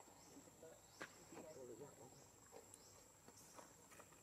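Near silence: faint outdoor ambience with a steady high insect drone, and a faint click about a second in.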